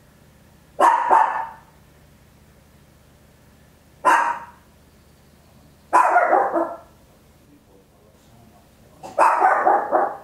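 A Papillon, a tiny toy-breed dog, barking very loud in four short bouts a few seconds apart. The first bout is a quick double bark, and the last bout is the longest.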